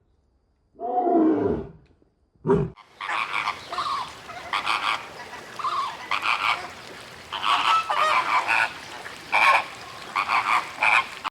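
A large animal gives a deep call that falls in pitch, about a second long, and then a short one. About three seconds in, a flock of farm poultry starts up, a busy chorus of overlapping honks and calls.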